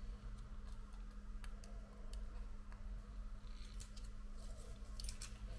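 Faint, scattered small clicks and taps of phone parts and tools being handled, over a steady low hum.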